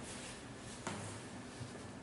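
Quiet room tone with a faint hiss and one soft knock a little under a second in.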